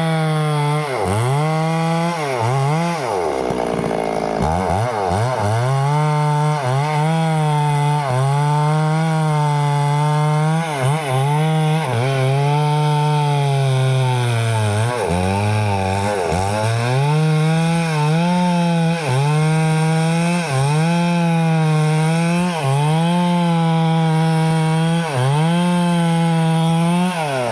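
Two-stroke Stihl chainsaw cutting teak wood at high revs. The engine speed repeatedly dips and recovers as it works in the cut, with one deeper drop a few seconds in.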